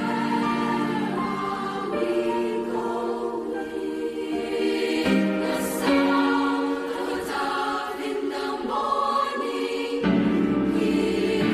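Mixed youth choir singing in parts, holding chords that shift every second or so.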